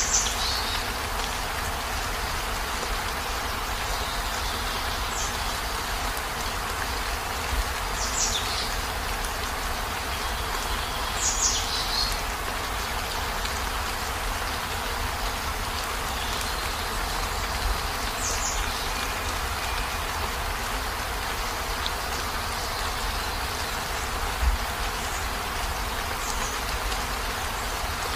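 Steady rain falling on a camper van, an even hiss with a low rumble beneath it. A few short high chirps that sweep downward come every few seconds, most of them in the first two-thirds.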